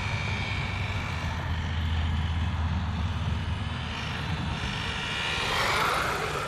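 High electric motor and gear whine of a 1/12 Haiboxing 2995 RC desert truck with a brushed 490 motor driving flat out; the whine bends up and down in pitch as the truck passes by about six seconds in.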